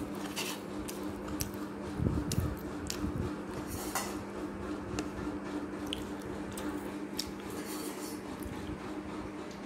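Stainless-steel dishes and a serving spoon making scattered light clinks, and rice being mixed by hand on a plate, over a steady low hum.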